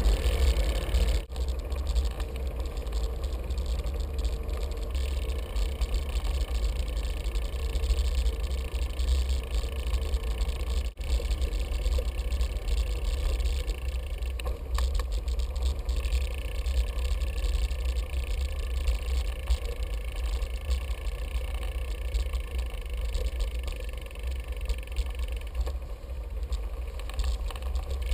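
Wind rumbling on a bicycle-mounted GoPro camera's microphone as it rolls slowly over paving, a steady low buffeting with a faint hiss over it. The sound cuts out for an instant twice, about a second in and again about eleven seconds in.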